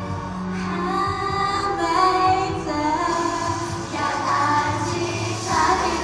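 Pop song with female vocals singing the melody over the full band mix, performed live on stage by a girl group.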